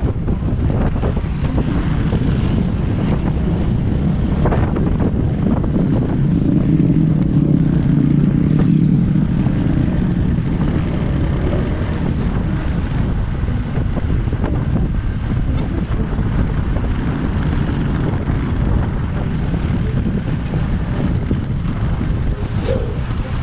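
Wind rushing over the microphone of a moving motorcycle, with the bike's engine running underneath. A louder low hum swells from about six to ten seconds in.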